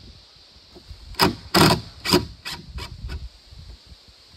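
A run of about six sharp knocks, starting about a second in and coming every third to half second; the first three are loud and the rest grow fainter.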